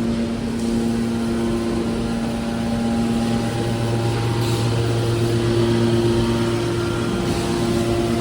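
Metal scrap baler running: a steady machine hum with several held tones. The low hum grows stronger about three and a half seconds in.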